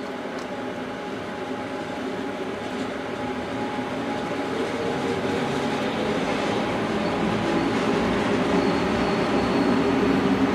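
Rhaetian Railway passenger train hauled by two electric locomotives moving through the station, the running noise of the locomotives and wheels on the rails growing steadily louder. Steady rain hiss underneath.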